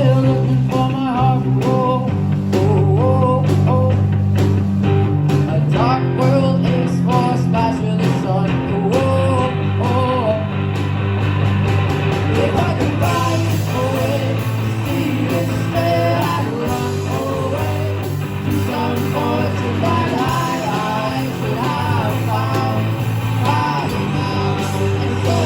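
A rock band playing a song, with guitars over sustained bass notes and drum hits.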